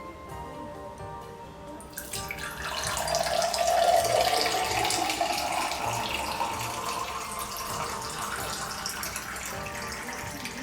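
Water running from a tap into a sink, starting suddenly about two seconds in and running steadily, over soft background music.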